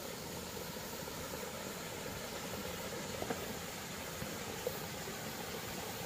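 Mountain stream running: a steady, even rush of water, with two faint knocks about three and four and a half seconds in.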